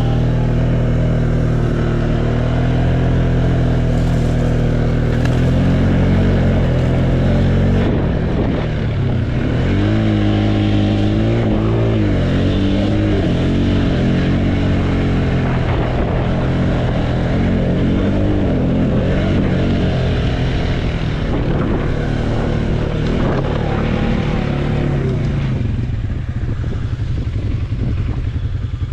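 ATV engine running while riding, its pitch rising and falling several times with the throttle through the middle stretch.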